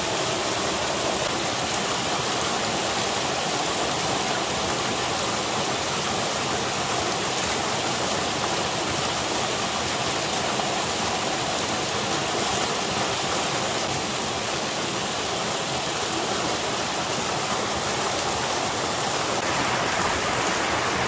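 Steady rushing of running water, like a stream flowing close by, with no pauses; the texture shifts slightly near the end.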